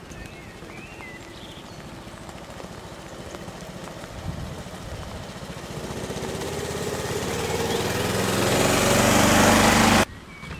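A 7.25-inch gauge miniature locomotive with a driver aboard running towards the listener, its motor and wheels growing steadily louder over several seconds. The sound cuts off abruptly just before the end.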